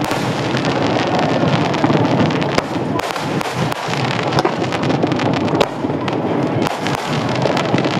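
Aerial fireworks display going off continuously: many sharp bangs and crackles over a steady, dense rumble of shells bursting.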